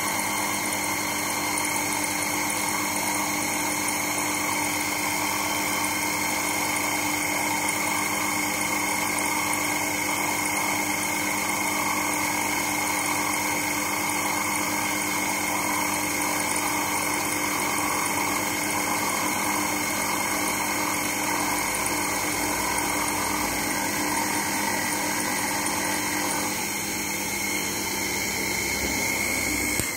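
Sherline mini lathe driven by a windscreen wiper motor, running steadily with a constant whine while the tool takes a turning cut along a metal bar. It gets a little quieter near the end as one tone drops out.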